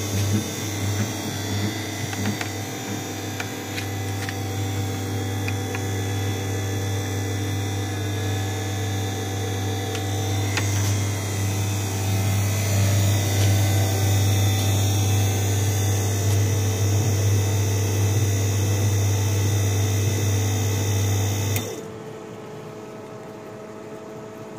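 A small electric motor humming steadily, with a strong low mains-type hum and several steady higher tones. It switches off suddenly near the end.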